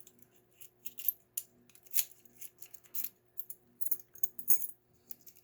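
Keys and deadbolt locks being handled, making a run of irregular light metallic clicks and clinks.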